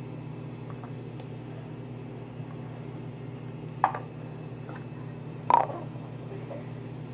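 Small paper cups being handled and set down on a table: two light taps about four and five and a half seconds in, with a few faint ticks, over a steady low hum.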